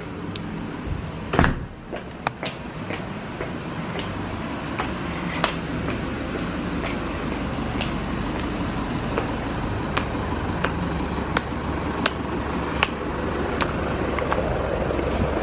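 High-heeled shoes clicking on hard steps and paving at a walking pace, about one step every three-quarters of a second, after a single loud knock about a second and a half in. Under the steps runs a steady low rumble that slowly grows louder.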